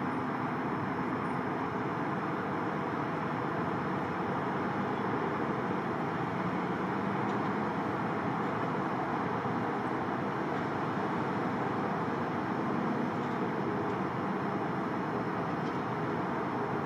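Antonov An-124 Ruslan's four turbofan engines running steadily at low power as the aircraft taxis: an even, unbroken rushing noise with faint humming tones underneath.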